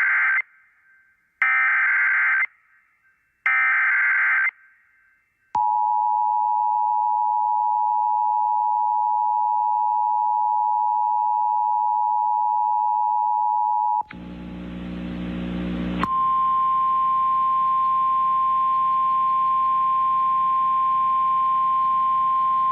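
Emergency Alert System alert signals. First come three short bursts of SAME header data, a harsh warbling screech. Then the two-tone EAS attention signal holds steady for about eight seconds, followed by about two seconds of static with a low hum. A steady single-tone NOAA Weather Radio warning alarm then starts, announcing a tornado warning.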